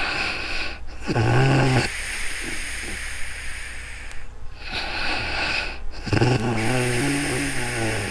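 A woman snoring: a short buzzy snore about a second in and a longer one from about six seconds, with breathy hissing between them.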